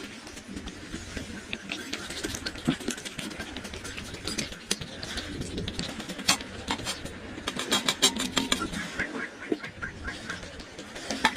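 Cat eating a meal: irregular small crunching clicks, thicker in the second half.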